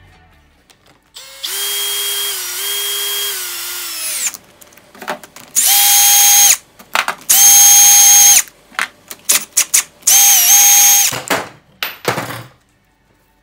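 Cordless drill-driver with a socket, spinning bolts out of a two-stroke outboard power head. First comes one lower-pitched run of about three seconds, then three shorter, louder, higher-pitched runs, with short clicks between them.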